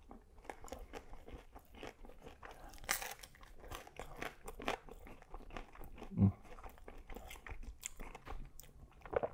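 Close-up chewing of a falafel waffle with lamb and toppings: crunching and moist mouth clicks, with a louder crunch about three seconds in.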